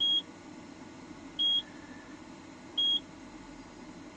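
ABI in-circuit IC tester beeping in loop test: a short, high, steady beep about every 1.4 seconds, one per test cycle, as it tests a 6810 RAM chip in circuit and shows a fail.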